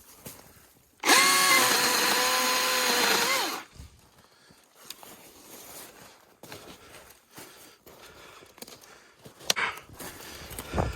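Milwaukee M18 cordless electric chainsaw running at full speed with a steady motor whine and chain rattle for about two and a half seconds, then winding down. Light rustling and a few clicks follow.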